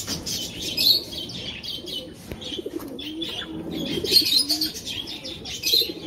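Caged birds calling: many quick high chirps and tweets, with lower cooing calls mixed in, loudest about four seconds in.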